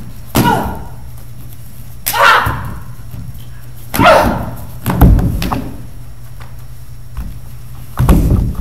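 Short loud shouts and yelps with falling pitch, about four of them a second or two apart, as the students act out a staged unarmed fight, mixed with dull thuds of bodies and a fall onto the stage floor near the end. A steady low hum lies underneath.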